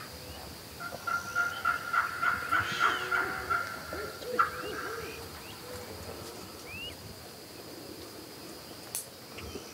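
Osceola wild turkey gobbling in a rapid rattling run of calls, with lower repeated bird calls over the middle of it. The calls fade after about five seconds, leaving a faint steady high tone.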